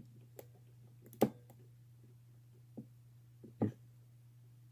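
A handful of light clicks and taps from a pick and tension wrench working in a laminated padlock's keyway, the second one sharpest, over a steady low hum.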